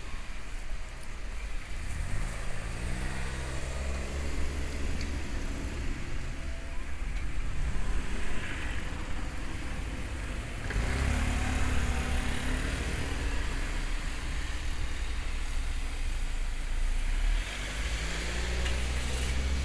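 Road traffic: cars driving by and pulling away, their engines rising in pitch three times, over a steady low rumble.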